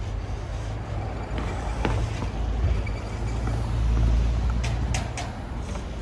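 Low rumble of a passing motor vehicle that swells to a peak about four seconds in and then eases off, with a few sharp ticks near the end.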